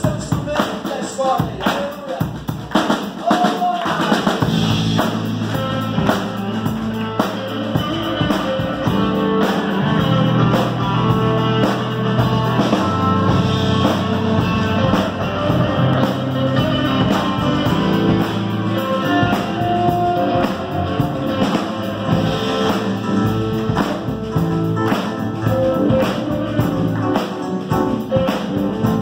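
Live band playing: drum kit with cymbals, electric guitar, electric bass and keyboard. It opens with drum hits alone, and about four and a half seconds in the bass and sustained keyboard chords come in.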